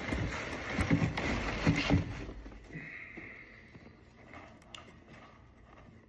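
Rustling and a few knocks as a sneaker box and its packaging are handled, dying down after about two seconds to quieter handling noises and a couple of clicks.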